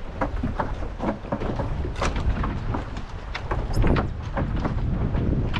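Strong gusty wind buffeting the camera microphone with a steady low rumble, mixed with irregular sharp ticks and splashes of water and rain.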